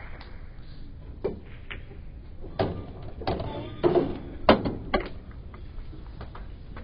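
Pool shot: the cue tip strikes the cue ball, then balls clack together and knock about the table as a ball is potted. The sharp clicks come scattered over several seconds, loudest about four and a half seconds in.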